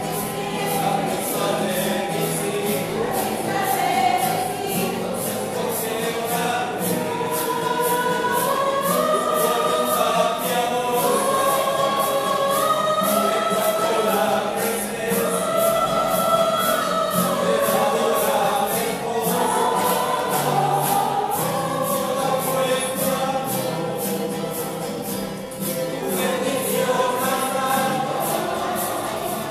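A choir singing a religious song over a steady light percussion beat.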